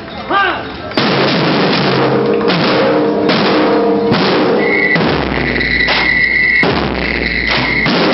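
Marching drum corps playing snare drums, bass drums and cymbals, starting in full about a second in. A held high tone sounds over the drumming from about halfway until near the end.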